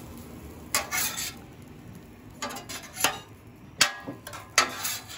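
Metal spatula and bench scraper scraping and clanking on a steel flat-top griddle while chopping and turning fried rice, in about half a dozen sharp strokes.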